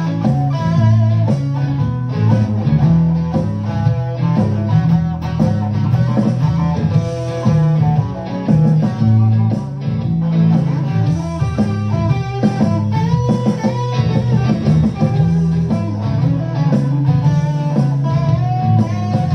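Single-pickup solid-body electric guitar played loudly through an amplifier, improvised: a run of riffs and single-note lines over steady low notes, without a break.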